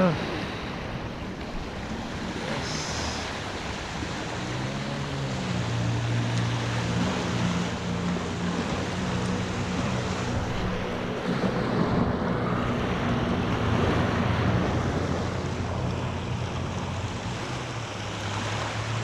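Small waves washing up on a sandy shore, with wind rushing on the microphone. A low steady hum joins in underneath about four seconds in and holds to the end.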